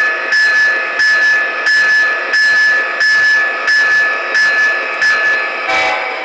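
MTH O-scale GE AC4400CW model locomotive with Proto-Sound 3.0 running on three-rail track: a steady high diesel whine with a regular click about every two-thirds of a second, and a short rattle near the end.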